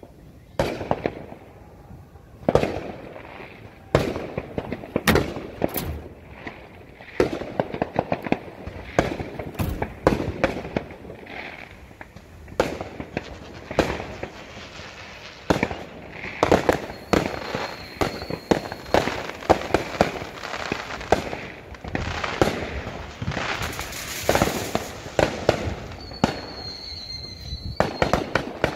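Aerial fireworks going off in a rapid, irregular series: sharp bangs of shells bursting, with crackling between them. A high thin whistle is heard twice in the second half.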